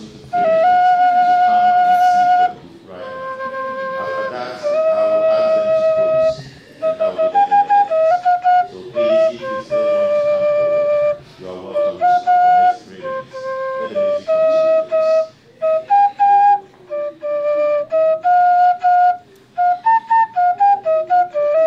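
Instrumental music: a single melody line played on a wind instrument, in short phrases separated by brief pauses.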